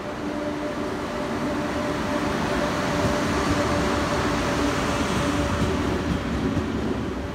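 KTX-Sancheon high-speed train, two sets coupled together, passing through the station close by: the wheels rumble on the rails over a steady low hum. The sound swells as the cars go past and is loudest a few seconds in.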